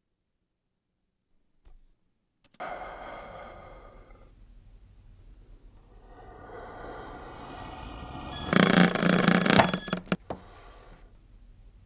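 Sound design in a horror film: a ringing drone of many tones begins after a short silence. It fades, then swells into a loud burst about eight and a half seconds in, which breaks off into a few sharp clicks.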